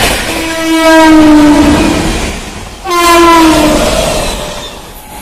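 Indian Railways locomotive horn sounding twice, a longer blast of about a second and a half and then a shorter one, each sliding down in pitch. Beneath it is the rumble of coaches running through at speed.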